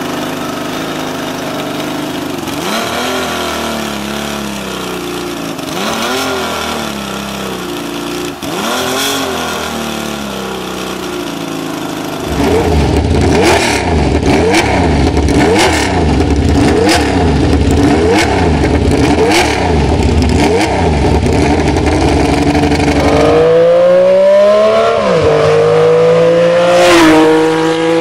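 Laverda V6 racing motorcycle's 996 cc 90-degree V6 engine revved in a few separate blips at standstill, then held high and revved up and down rapidly and repeatedly, louder. Near the end it accelerates away, the pitch climbing with two upshifts about two seconds apart.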